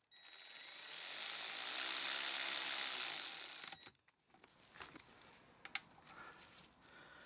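Ratchet wrench clicking rapidly while it runs in the reverse-gear bolt on a Suzuki Swift gearbox. The clicks quicken into a continuous rattle for nearly four seconds, then stop abruptly, and a few light tool clicks follow.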